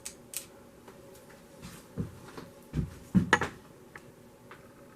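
A few light, separate knocks and clicks of tools and parts being handled, the strongest cluster a little past the middle.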